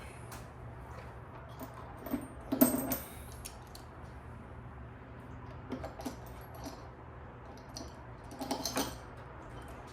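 Small metal parts and hardware clinking and rattling as they are handled during an ignition coil install. It comes in three short clusters of clicks, the loudest about two and a half seconds in.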